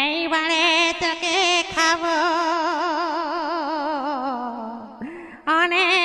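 A high-pitched voice's drawn-out evil laugh: a held, quavering 'ah-ha-ha' with a fast, even wobble in pitch. It sinks lower and fades about five seconds in, and a second laugh starts half a second later.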